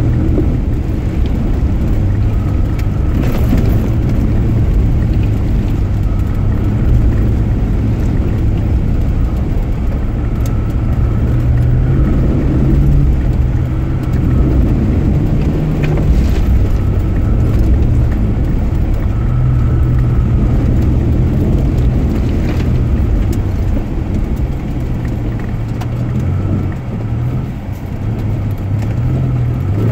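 Ford Explorer's engine running as it drives along an off-road trail, its hum shifting up and down in pitch with the throttle, over a rough rumble with a few sharp knocks.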